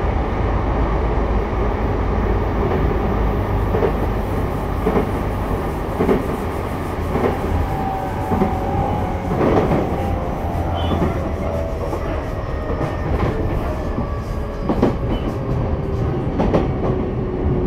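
Sotetsu 11000 series electric train running, with steady wheel-and-rail rumble and wheels clicking over rail joints. From about halfway in, faint tones from its Mitsubishi IGBT-VVVF traction motors slowly fall in pitch as the train slows.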